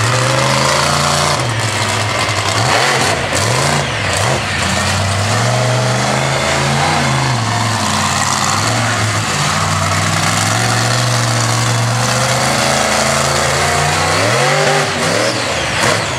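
Monster truck engine revving hard under racing throttle, its pitch climbing and falling again and again. Near the end the revs drop briefly, then rise sharply.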